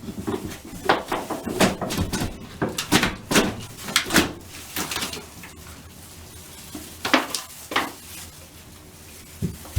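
Irregular knocks and clatter of old wallboard being pried and pulled off a wall, dense for the first four seconds or so, then two more sharp knocks about seven seconds in.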